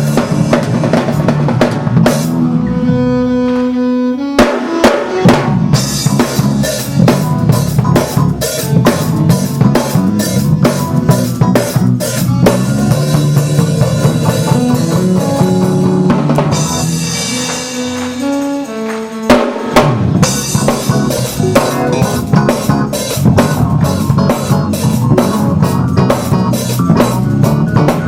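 Live church band playing gospel praise music: a drum kit with bass drum and snare keeps a busy beat over sustained keyboard chords and bass, the drums dropping out briefly twice for held chords before coming back in.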